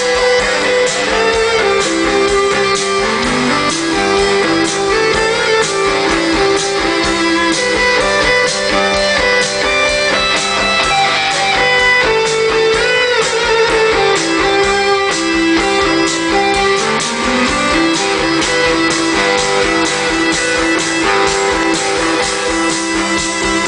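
Live rock band playing an instrumental passage led by electric guitar over a steady beat, with no vocals.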